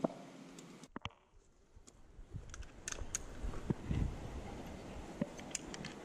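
Scattered light clicks and handling noise of climbing hardware, carabiners and a rope descender, being worked and closed. There is a short silent gap about a second in.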